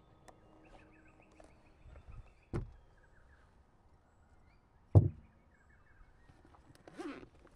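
Two sharp knocks about two and a half seconds apart, the second one louder, then a short scuffing noise near the end, over faint bird chirps.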